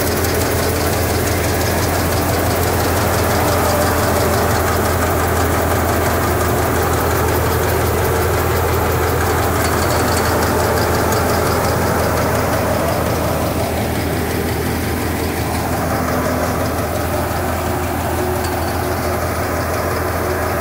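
Sonalika 30x18 multicrop paddy thresher running under load, driven by a 13 HP power tiller's diesel engine: a steady low drone of engine and threshing drum with a dense mechanical clatter over it.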